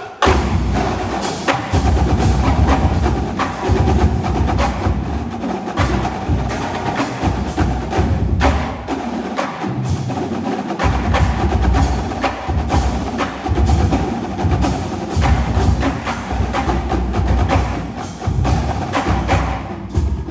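Marching drumline playing together in a dense, loud rhythm, coming in all at once right at the start. The deep bass pulse drops out briefly about halfway through, then returns.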